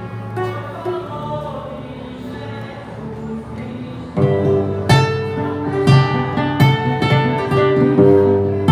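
Acoustic guitar music with no vocals. Soft held chords ring for about four seconds, then a louder, fuller strummed accompaniment with low bass notes kicks in and keeps a steady rhythm as the next song's intro.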